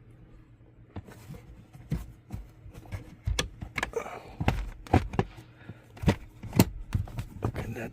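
Plastic interior trim cover of a car being pushed and knocked into place by hand: a string of irregular sharp clicks and knocks, louder toward the end, as it seats.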